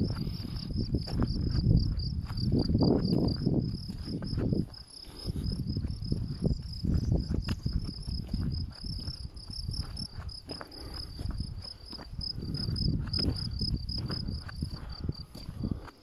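Insects chirping in a steady, finely pulsing high trill, with a louder uneven low rumble and scattered clicks beneath it.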